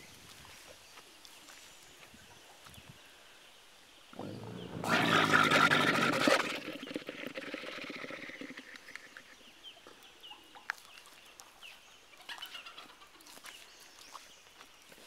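A camel growling: one loud, rough growl starting about four seconds in, lasting about two seconds, then trailing off over the next few seconds.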